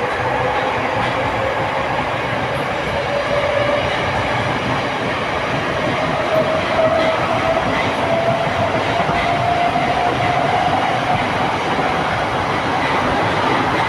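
Moskva-2020 metro train running, heard from inside the carriage: a steady rumble and wheel noise, with a traction-motor whine that rises slowly in pitch as the train gathers speed.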